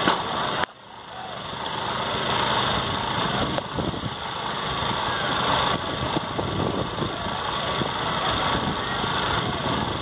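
Steady rushing background noise with a low rumble, dipping suddenly just after the start and then building back. A faint sharp knock comes about six seconds in, as a cricket bat strikes the ball.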